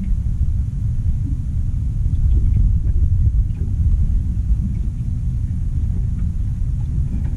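Wind buffeting the microphone: a steady, uneven low rumble with no pitch to it.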